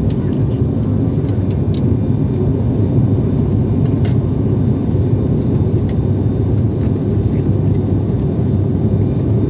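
Steady low rumble of airliner cabin noise, engines and airflow heard from inside the cabin while the plane climbs at about 380 km/h. A faint steady high whine and a few light ticks sit above it.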